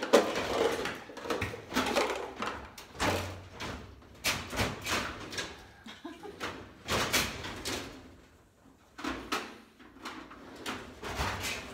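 Irregular knocks, clicks and clatter of tools being handled and set into a hard plastic tool case, with a quieter spell a little after halfway.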